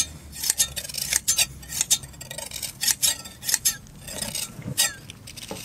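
Steel hand blade shears snipping through a sheep's fleece during hand shearing: an irregular run of sharp metallic snips, several a second.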